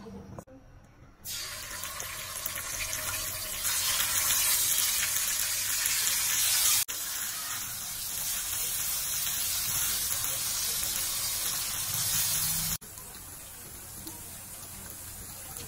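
Chili paste sizzling in hot oil in a non-stick wok while it is stirred, cooking until the oil separates. A steady hiss starts about a second in and grows louder, breaks off sharply twice, and is quieter near the end.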